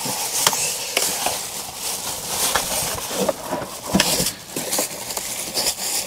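Plastic wrapping rustling and a cardboard box scraping and knocking as a boxed 12 V refrigerator/freezer is tugged out of its carton, with a scatter of short knocks.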